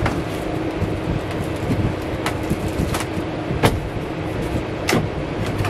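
A few sharp clicks and taps as wiring and ceiling parts are handled overhead, over a steady rushing background noise with a faint low hum.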